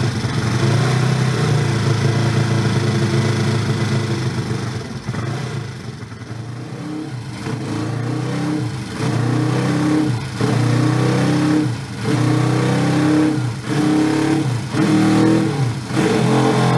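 Honda CB350 racer's parallel-twin four-stroke engine running on a stand: held at a steady speed at first, falling back a few seconds in, then revved in a series of throttle blips through the second half, the pitch rising and falling each time.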